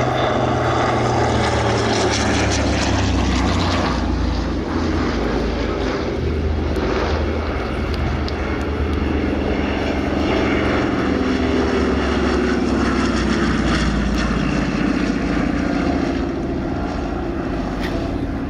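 Twin radial piston engines of two C-47 transports droning through a low pass. The engine pitch drops in the second half as the planes go by.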